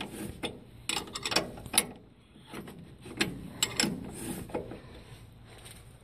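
Steel brake-kit bolts and hardware being handled, clinking and knocking together in irregular clusters of sharp metallic clicks.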